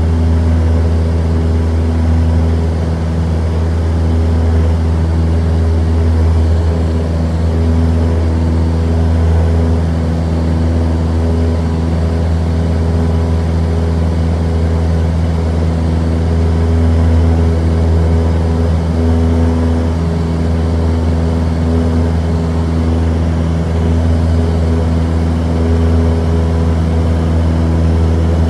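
Cessna 172's four-cylinder piston engine and propeller droning steadily in cruise, heard from inside the cabin as a loud, even low hum.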